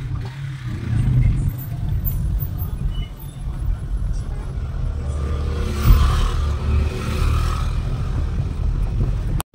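Maruti Suzuki WagonR car driving down a hill road: a steady low rumble of engine and tyre noise. The sound drops out for an instant near the end.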